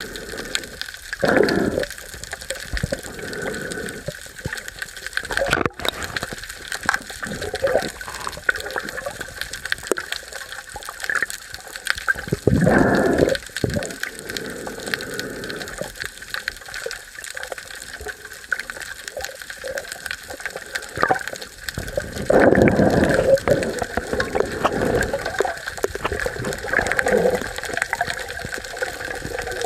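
Water rushing and bubbling, heard through an underwater camera, with several louder gushing swells.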